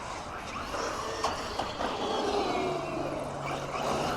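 Electric motor and drivetrain of an MJX 10208 RC car whining as it is driven, the pitch sliding up and down with the throttle, with a few sharp ticks.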